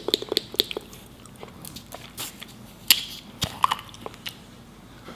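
Close-miked chewing, heard as a string of short, sharp wet mouth clicks. They come quickly in the first second, then spread out, with the loudest click about three seconds in.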